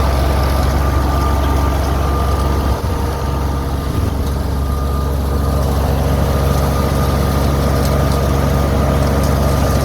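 Wheat thresher and its engine running steadily under load: a loud low drone with a thin, steady high whine over it.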